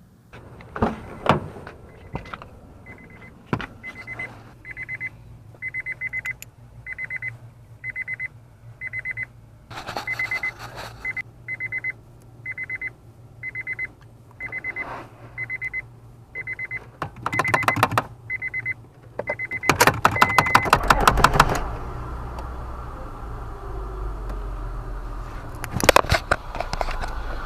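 The car's electronic warning chime beeps steadily, about one and a half beeps a second, then the starter cranks the Honda Odyssey's 3.5 L V6 in short bursts. A steady low rumble follows the second burst, and a final burst comes near the end.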